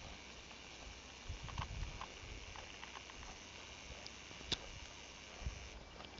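Brown bear grazing, with faint irregular crunching and ripping as it crops and chews meadow grass. A single sharp click about four and a half seconds in.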